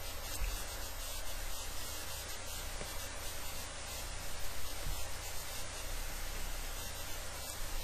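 Steady hiss and static with a low hum underneath: the recording's own background noise, with no distinct event.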